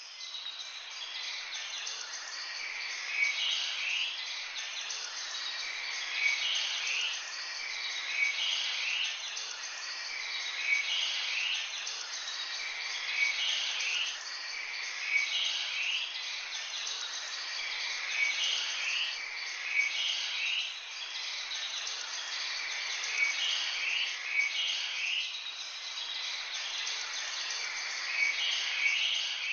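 Small birds chirping, with a short bright phrase repeating about every two seconds over a steady high hiss.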